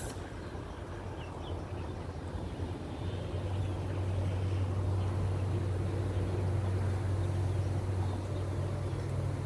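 A steady low mechanical hum that grows louder about three seconds in, with faint short chirps of birds or insects above it.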